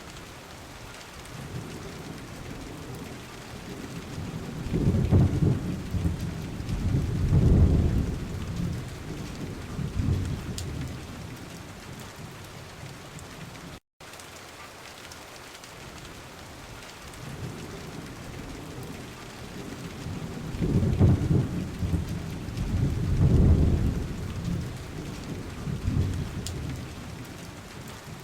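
Rain-sound track: steady rainfall with low rolling thunder swelling up twice, then a brief dropout and the same stretch of rain and thunder looping again.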